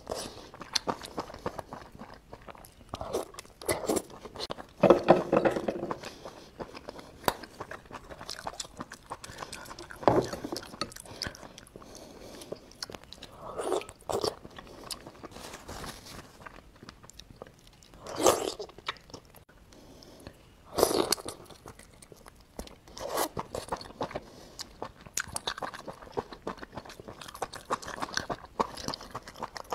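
A person chewing and biting cooked sea snail meat: irregular crunchy, wet chewing sounds with louder bites around five seconds in and twice more past the middle.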